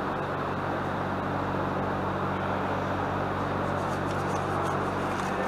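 Steady machine hum with an even hiss, a constant background drone that does not change, with a few faint light ticks near the end.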